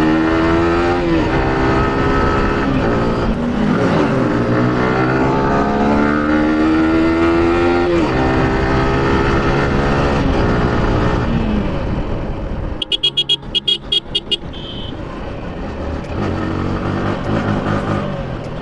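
Yamaha R15's single-cylinder engine with a full-system exhaust, revved hard several times, each rise in pitch ending in a drop as the throttle closes or the gear changes, over steady wind and road noise. About thirteen seconds in, a quick run of sharp crackles lasts a second or two as it slows.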